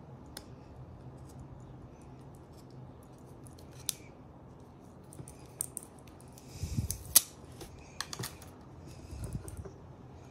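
Hands handling a Suunto Ocean watch: scattered small plastic clicks, then about two-thirds of the way through a brief rustling scrape ending in a sharp click as the protective film is peeled off the display. A few more clicks and a short rustle follow.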